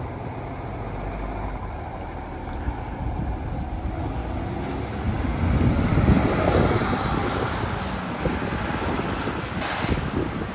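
Fire engine pulling out and driving off, its engine growing louder as it accelerates past, loudest about six seconds in, then easing as it moves away. A short hiss comes near the end.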